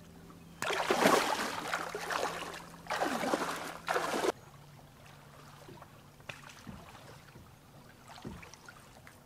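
Water splashing and sloshing in shallow lake water, in three surges, cutting off abruptly about four seconds in. Then quiet, with a low hum and a few faint knocks.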